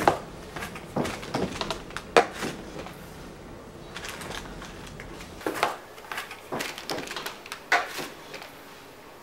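Cardboard pizza box being opened and handled, with crinkling of the crumpled paper and foil inside: irregular rustles and taps, several sharp ones near the start and a cluster past the middle.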